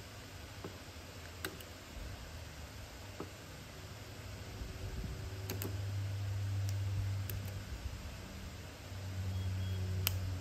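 A few sharp little clicks of a plastic pry tool working at a smartphone's battery connector to unplug it, over a low steady hum that grows louder in the second half.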